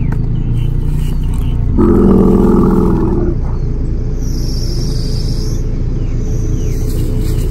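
A motor vehicle engine idling steadily. About two seconds in, a loud pitched, wavering sound lasts about a second and a half. Faint high insect-like chirring comes in later.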